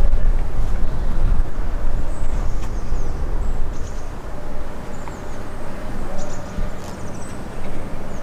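A low, uneven rumble of wind buffeting the microphone, with a few faint high bird chirps.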